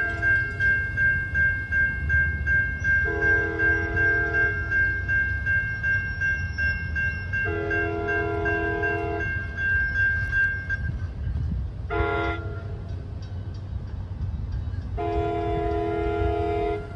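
NJ Transit train's multi-chime locomotive horn sounding long, long, short, long, the standard grade-crossing signal, over the low rumble of the train. A bell rings steadily until about two-thirds of the way through, and the tail of an earlier blast ends just after the start.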